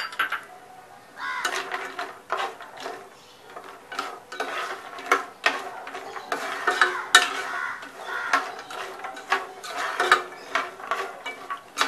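Orange plastic slotted spoon stirring almonds and cashews frying in ghee in a pan: irregular scraping, with clicks of nuts knocking against the pan.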